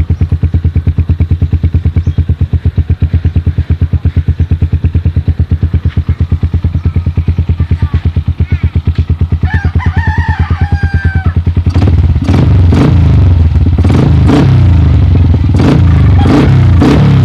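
Rusi KR motorcycle with a modified exhaust pipe idling with an even pulsing beat, then, from about twelve seconds in, revved repeatedly with quick throttle blips.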